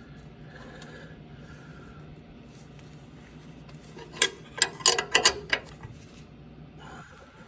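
Ratcheting wrench clicking in a quick run of about six clicks, about four seconds in, as it is worked by hand to turn a slot punch cutting the upper control arm bolt hole wider. A low steady hum runs underneath.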